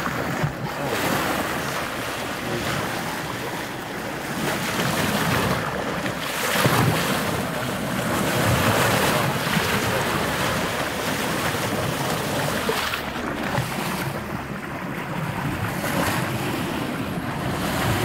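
Water rushing and splashing past the hull of a moving boat, with wind buffeting the microphone; it grows louder for a few seconds around the middle.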